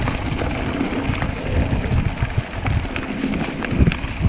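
Mountain bike riding down a rough, wet, rocky forest trail: steady tyre and wind rumble with scattered clicks and knocks as the bike rattles over stones.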